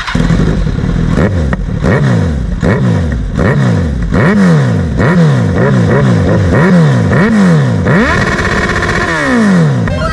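Kawasaki Z1000's inline-four engine revved in place with quick throttle blips, each rising and falling sharply in pitch, about one and a half a second. Near the end comes one longer rev that climbs higher and falls back.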